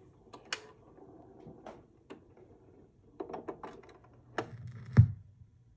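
Turntable tonearm being lifted, swung over and cued onto a spinning 7-inch vinyl single: a series of small mechanical clicks, then a low thump about five seconds in as the stylus lands in the groove.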